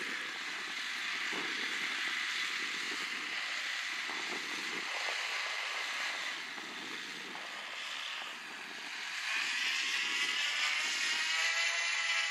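Wind rushing across the microphone. About nine seconds in, the drone of a radio-controlled model airplane's propeller swells in and then drops in pitch as it passes.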